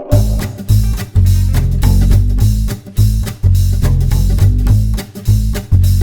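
Background music with a walking bass, guitar and drum kit in a swing-jazz style, starting abruptly at the beginning.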